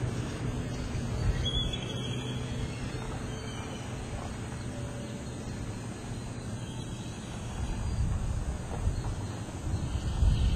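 Outdoor ambience: a low, steady rumble with a faint high chirp about two seconds in, the low rumble growing louder near the end.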